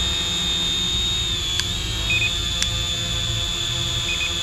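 Holy Stone HS110G quadcopter's motors and propellers hovering with a steady high-pitched whine that wavers briefly about a second and a half in. Short double beeps sound about two seconds in and again near the end: the drone beeps this way while it is recording video.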